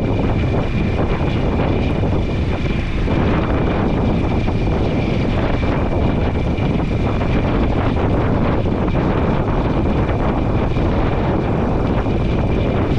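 Small boat's outboard motor running steadily with a thin high whine, mixed with wind buffeting the microphone.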